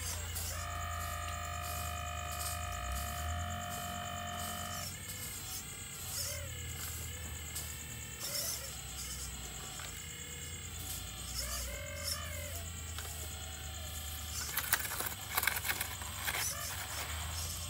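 Radio-controlled model excavator's hydraulic pump whining as the long arm moves. The whine is steady for the first few seconds, then comes in shorter whines that rise and fall in pitch. Near the end the bucket scrapes and crackles in the soil.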